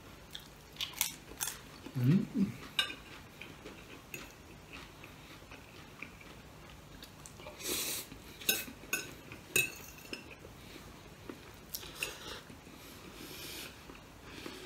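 A metal fork clinking and scraping on a ceramic plate in a series of short separate clicks, along with the mouth sounds of eating noodles.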